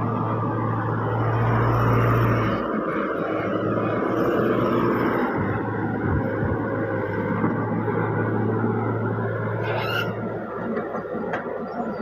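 Mini excavator's diesel engine running steadily as the arm and bucket swing, with a strong low hum that weakens a little over two seconds in. A short sharp sound comes near the end.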